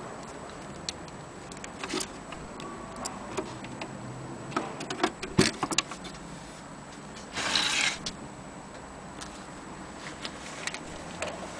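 Mechanism of a 1927 Mignon index typewriter clicking irregularly as it is operated, with a quick cluster of sharper clacks about five seconds in and a short rasping, scraping noise lasting under a second around seven and a half seconds in.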